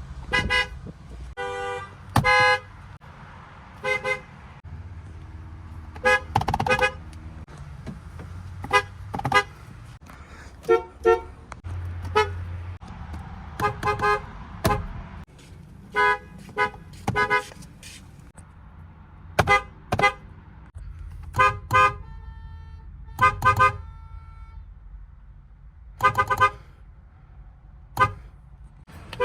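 Ford Mustang car horns sounded one car after another in short honks, often a quick double toot, about twenty in all. Each car's horn has a slightly different pitch and tone.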